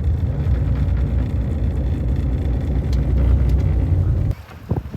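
Car driving slowly on snow with tyre chains fitted: a loud, steady low rumble with a rapid flutter, which cuts off suddenly a little after four seconds in.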